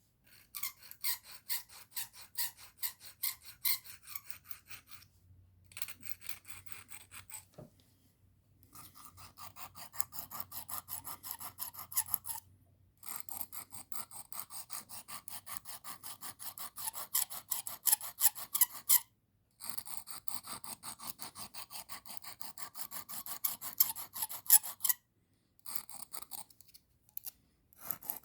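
Carbon steel pocket knife blade stroked quickly back and forth on the coarse side of a sharpening stone, a rasping scrape in runs of rapid strokes broken by short pauses.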